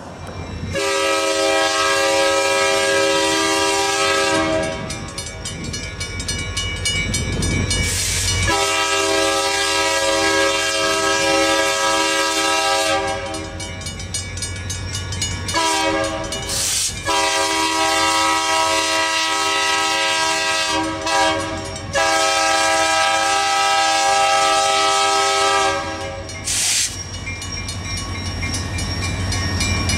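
Diesel freight locomotive's multi-chime air horn sounding the grade-crossing signal: two long blasts, a short one, then a long final blast broken once. Near the end the locomotive's engine and wheels rumble as it rolls across the crossing.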